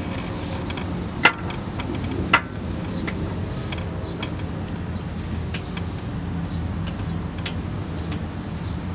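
Metal parts clicking as hands work inside the front of a GM LS V8 engine during a cam swap: two sharp clicks about a second apart, a little over a second in, then fainter scattered ticks. A steady low hum runs underneath.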